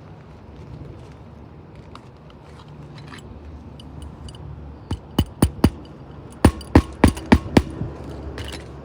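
Hammer driving roofing nails through a replacement asphalt shingle: about nine sharp blows in two quick runs of four and five, after a stretch of light clicks and scraping.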